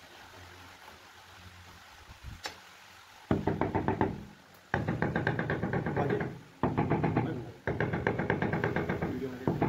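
Hammer rapidly tapping a granite skirting strip to bed it into its mortar, in five quick bursts of closely spaced knocks beginning a little over three seconds in.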